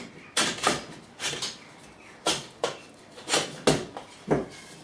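Hammer knocking on a wooden block: about nine sharp knocks, mostly in pairs.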